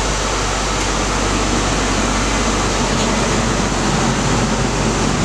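Dashboard climate-control blower fan running steadily, an even rushing of air with a low constant hum beneath it.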